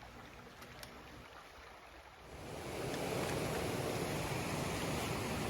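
Steady rushing of a flowing creek, coming in about two seconds in after a faint, quiet start.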